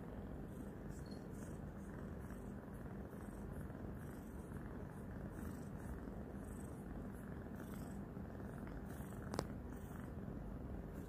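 Domestic tabby kitten purring loudly and steadily while it licks and bites a hand, with one sharp click a little over nine seconds in.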